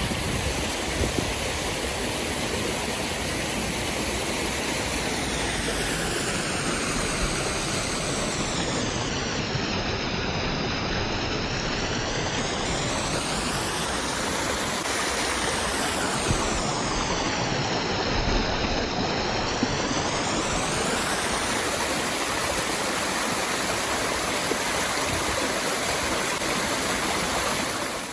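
Waterfall water rushing and splashing steadily, without a break, cutting off suddenly at the end.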